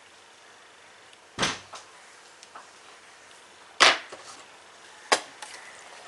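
Three sharp knocks of hard objects handled on a workbench, about a second and a half in, just under four seconds in and about five seconds in, the middle one loudest, with a few faint ticks between.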